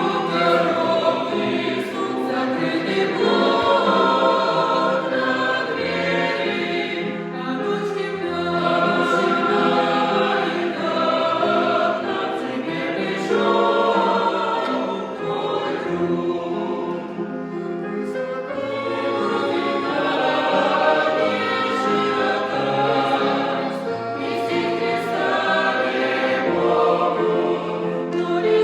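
A choir singing a song in several voice parts, with sustained chords that change pitch phrase by phrase.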